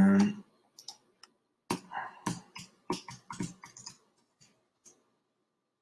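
A brief hum of voice at the start, then typing on a computer keyboard: a quick run of about a dozen key clicks as a word is typed into a search box, stopping near the end.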